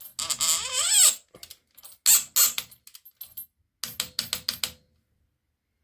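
Ratcheting wrench turning the dropper post's clamp bolt to torque: a short scrape with a rising squeak, then sharp clicks, and a quick run of about six ratchet clicks about four seconds in.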